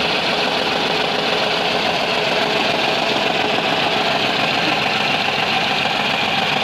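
Renault Kwid three-cylinder petrol engine idling roughly with an uneven, knocking beat: it is misfiring on one cylinder, cylinder 3, which the scan tool ties to an injector control circuit fault.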